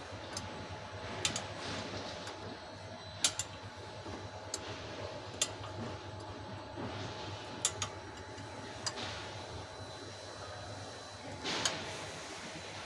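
Scattered sharp clicks and light taps, irregular and about a second or two apart, over a steady low hum.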